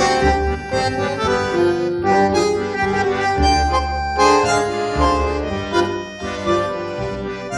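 Background music: a melody of changing notes over a bass line.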